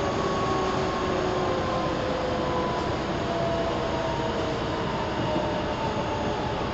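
Meitetsu 3300 series electric train running, its traction motors whining in several tones that fall slowly in pitch as the train slows, over a steady rumble and hiss of wheels on rail.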